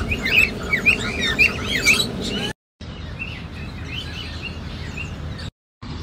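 Many small birds chirping and twittering together, with short rising and falling chirps packed closely for the first two and a half seconds. The sound drops out twice for a moment, and after the first dropout the chirping goes on fainter.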